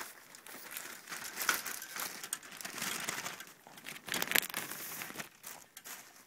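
Clear plastic bags wrapped around plastic model-kit parts crinkling and crackling as they are handled, with a sharper crinkle a little after the middle. It stops shortly before the end.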